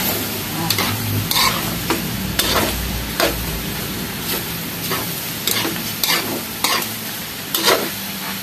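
A metal spatula scraping and turning pork intestines in a metal wok, with short scrapes coming about once a second over a steady sizzle of frying.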